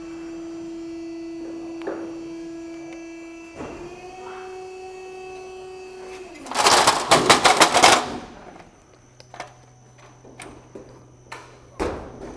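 A power drill running at a steady whine that steps up slightly in pitch a few seconds in, then a loud rough grinding burst of about a second and a half as it bites into the steel flashing. Light knocks and a thump follow near the end.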